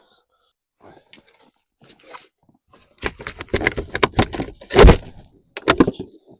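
Metal and plastic truck-door parts being handled during a side-mirror swap: a few light clicks, then from about three seconds in a fast run of rattling knocks with a heavy thump near the middle of that run.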